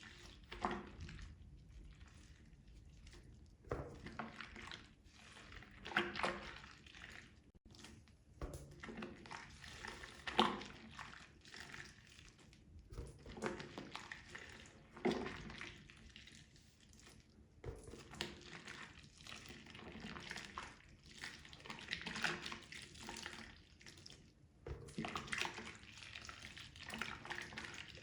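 Wet makeup sponges being squeezed and worked in soapy water. Irregular wet squeezes come every second or two, with water running and dripping.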